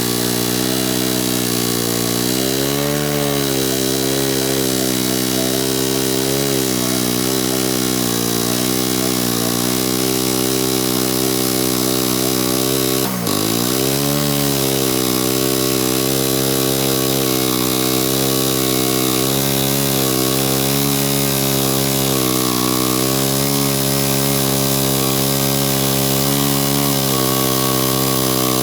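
Wood-Mizer LT15 band sawmill running, its engine pitch sagging and recovering as the band blade cuts through the log. About halfway through there is a sharp click and the engine briefly drops in speed before picking back up.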